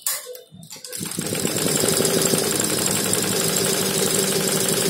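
HSW Kartoos 12-needle computerized embroidery machine starting up about a second in and running at stitching speed: a fast, even mechanical knocking from the needle drive with a steady hum underneath.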